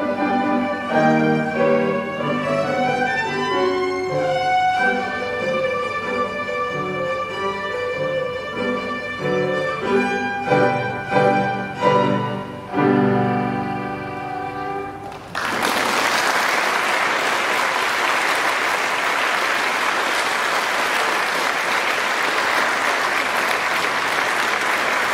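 Violin with piano accompaniment playing the closing bars of a piece, ending on a few loud chords and a held last note. Then an audience applauds steadily.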